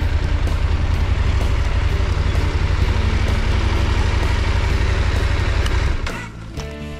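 KTM 890 Adventure motorcycle riding slowly over sand: a steady low engine rumble mixed with wind noise. It drops off sharply about six seconds in.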